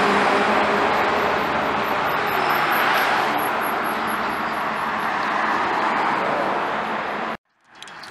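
Traffic passing close on a street: steady engine and tyre noise of vehicles driving by, among them a sheriff's SUV. A faint rapid high-pitched pulsing runs through the middle, and the sound cuts off abruptly near the end.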